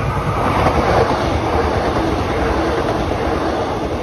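KRL electric commuter train passing close by: the rumble of its wheels on the rails swells as the front reaches the microphone about a second in, then holds steady as the carriages go past.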